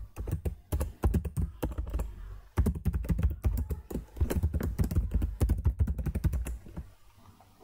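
Rapid typing on a computer keyboard: a quick run of key clicks with a brief pause about two and a half seconds in. The typing stops near the end.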